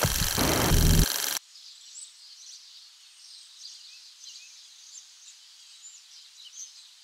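Birds chirping faintly and sparsely in a forest, short high calls scattered through the quiet. It opens with a loud rush of noise and low thumps that cuts off suddenly about a second and a half in.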